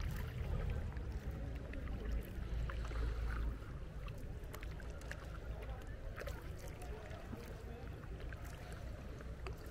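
Sea canoe being paddled across calm water: small splashes and drips with scattered sharp little clicks, over a low rumble that drops about three and a half seconds in.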